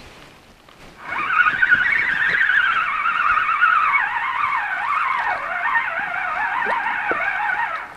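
Spinning fishing reel cranked steadily as a fish is retrieved, its gears giving a whine that wavers up and down with each turn of the handle, starting about a second in.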